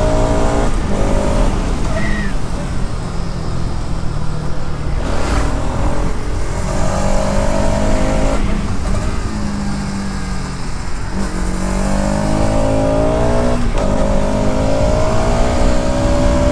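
Bajaj Pulsar RS 200's single-cylinder 200 cc engine on the move through its stock exhaust, revving and changing gear. Its pitch climbs and breaks off every two to three seconds at each shift, and falls for a few seconds around the middle as it slows, before climbing again.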